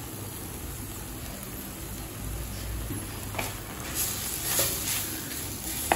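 Ladle stirring and mashing cooked gongura leaves in a clay pot: a few faint scraping strokes, starting about three seconds in.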